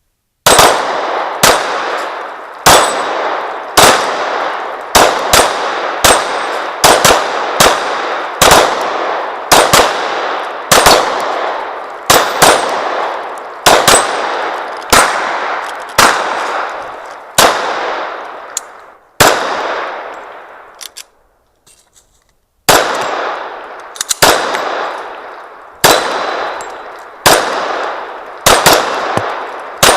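Rapid 9mm pistol fire from two shooters at steel targets, about one to two shots a second, each shot followed by the ringing clang of the hit steel plate. The firing stops for about two seconds around two-thirds of the way through, then resumes.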